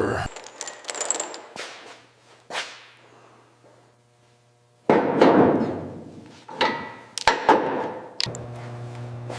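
Metal clanking: a series of separate knocks and clanks of metal on metal, the loudest about five seconds in with a ringing tail. A steady low hum starts about eight seconds in.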